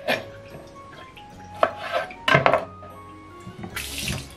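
Kitchen knife knocking and scraping on a plastic cutting board several times while fish fillets are trimmed. Near the end the kitchen tap runs briefly.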